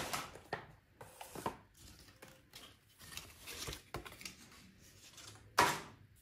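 Cookware and packaging being handled: a stainless-steel mesh sieve and a frying pan knocking lightly, with rustling and scattered clicks, and one louder knock near the end.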